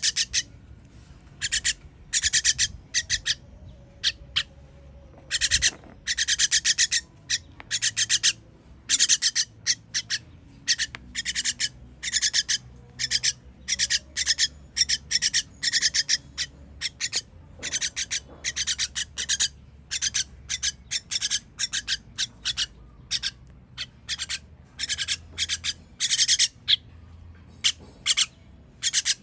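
Baby bird begging to be fed: high-pitched, rapid chirping in short bursts, repeated over and over.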